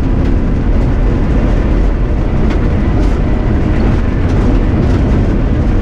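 BMW 325i E30's 2.5-litre straight-six engine running hard on a rally stage, with tyre and road noise, heard from inside the car at a steady level.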